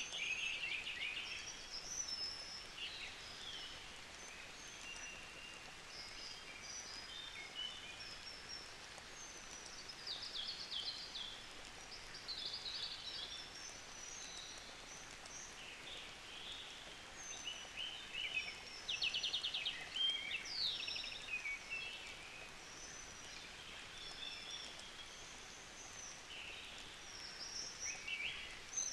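Several birds chirping and trilling on and off, with short high calls and quick rattling trills over a faint steady hiss.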